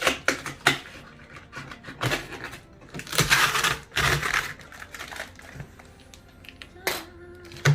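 Gift packaging being handled and unwrapped: scattered sharp knocks and clicks, with a rustling, tearing stretch of about a second a little past the middle.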